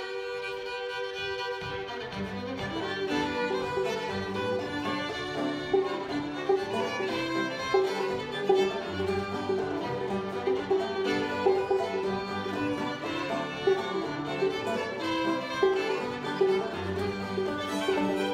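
Old-time string band playing an instrumental tune: two fiddles lead over a banjo and acoustic guitar. A fiddle starts the tune, and the guitar's low notes come in about two seconds in.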